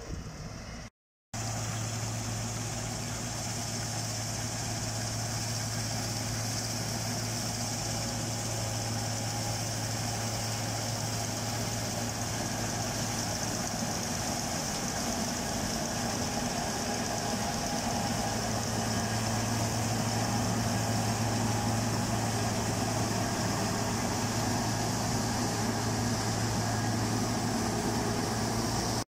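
Claas Tucano 320 combine harvester running at work in a rapeseed crop: a steady engine drone with a hiss over it. The sound drops out for a moment about a second in, then goes on unchanged.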